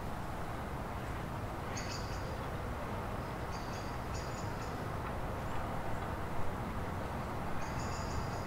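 Steady outdoor background noise with a short high-pitched chirp four times: about two seconds in, twice around four seconds, and near the end.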